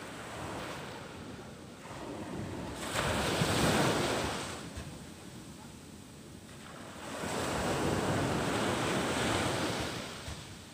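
Ocean surf breaking and washing up the beach, swelling twice: once about three seconds in and again, for longer, from about seven seconds.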